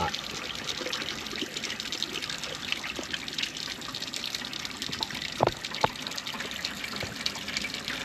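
Faucet running a steady stream of water into a stainless steel sink, with two short knocks about five and a half seconds in.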